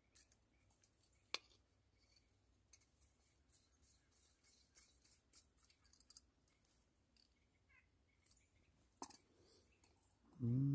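Small metal clicks and ticks as a compact backpacking stove is handled, threaded onto a Coleman fuel canister and its folding pot-support arms set out, with a few sharper clicks among them.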